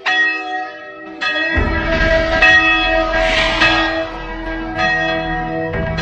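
A large bell tolling, struck several times, each stroke ringing on and fading, over a low rumble.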